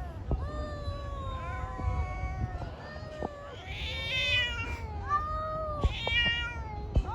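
Two cats yowling at each other in a fight standoff: long, drawn-out, wavering howls that overlap at different pitches. The calls turn shriller and louder about four and six seconds in.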